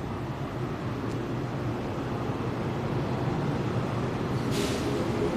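JR 113-series electric multiple unit pulling out of the station, a steady rumble of wheels and running gear that grows louder as it gathers speed. A traction-motor whine comes in a little over three seconds in, and there is a short hiss about four and a half seconds in.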